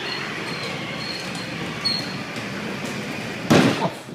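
Battery-powered Lightning McQueen ride-on toy car rolling on concrete, its motor and hard wheels making a steady rushing rumble. About three and a half seconds in there is a short loud clatter, as it crosses into a doorway.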